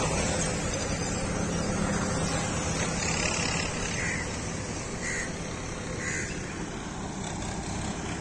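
Crows cawing a few times, about a second apart, starting around three seconds in, over a steady low background rumble.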